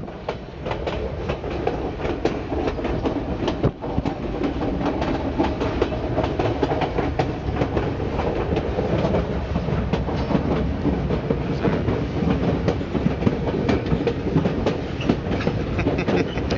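White Pass railway narrow-gauge train running on the rails: a steady rumble of the cars with frequent sharp clicks of the wheels on the track.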